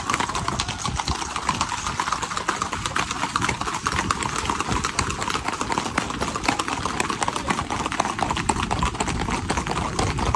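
Several horses' hooves clattering on a paved road in a fast, steady rhythm of many quick beats, as a group of riders moves along at a gait.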